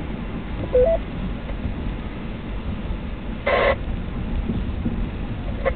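Ham radio in a moving car: a short two-note rising beep about a second in, the repeater's courtesy tone, and a brief rush of squelch noise past the middle, over the car's steady low road rumble.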